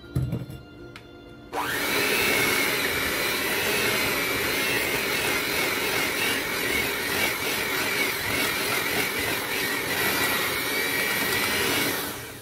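Handheld electric mixer beating stiff cookie dough of butter and flour in a stainless steel bowl. It switches on abruptly about a second and a half in, runs steadily with a wavering whine, and stops near the end. A single knock comes just before it starts.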